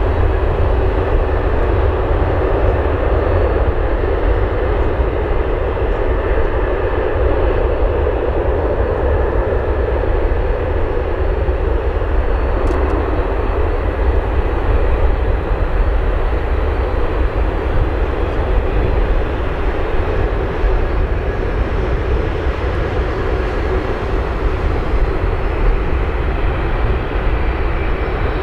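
Jet airliner engines running loud and steady for the whole stretch, a deep rumble under a broad rushing noise.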